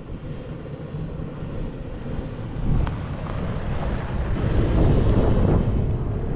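Strong gusting desert wind buffeting the microphone with a deep rumble, fading in and growing stronger over the first few seconds.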